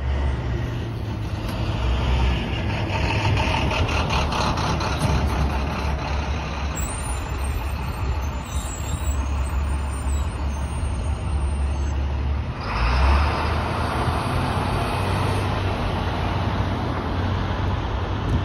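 Downtown street traffic around a TTC Flexity streetcar and a heavy armoured truck, with a steady low engine hum throughout. A louder rush of traffic noise comes in about two-thirds of the way through.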